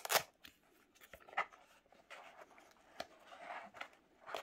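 Hands handling a new sandal: soft rubbing and rustling of its straps, with a few short taps, the sharpest right at the start.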